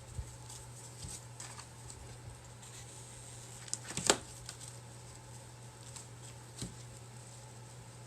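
Crafting handling noise: small scattered clicks and rustles as rope is pressed and glued around a clay pot, with a sharper cluster of clicks about four seconds in, over a steady low hum.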